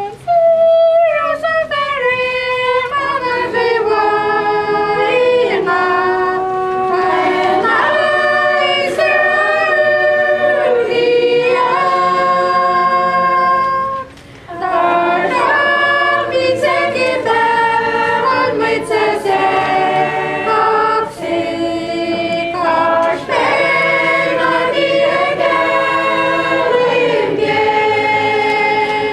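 Congregation singing a hymn unaccompanied, voices holding long notes, with a brief pause between phrases about halfway through.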